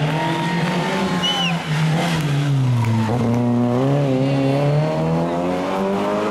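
Rally car engine revving hard through a corner. The pitch dips about two to three seconds in, then climbs steadily as the car accelerates away, with a couple of short high chirps about a second in.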